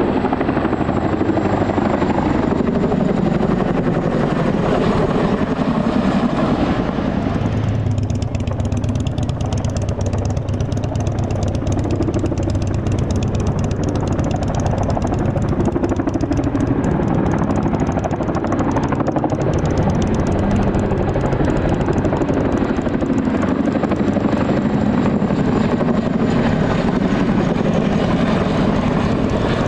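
US Army CH-47F Chinook tandem-rotor helicopter flying low overhead, its rotors beating rapidly and loud without a break. A thin high whine rides over it near the start and again near the end.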